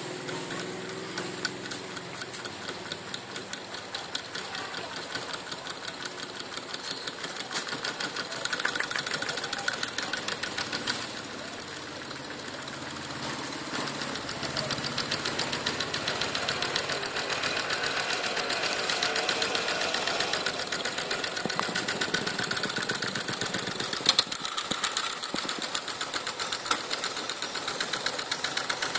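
Homemade beverage-can Stirling engine running, its crank linkage and flywheel clattering in a fast, even ticking rhythm as it drives a small generator. The clatter grows louder for a few seconds about a third of the way in, then eases off briefly.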